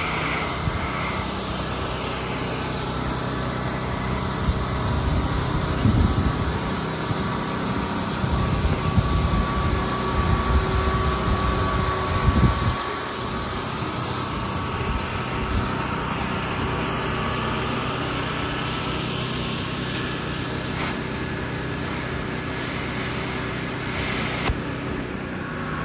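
Pressure washer engine running steadily under the hiss of a high-pressure spray wand washing a gas station canopy.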